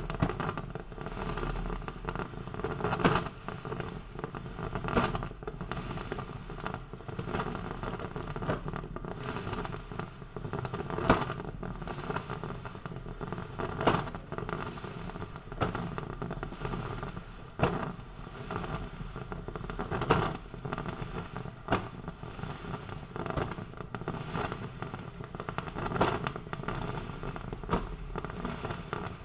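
Coffee maker brewing: a steady hissing, bubbling noise broken by sharp pops every few seconds.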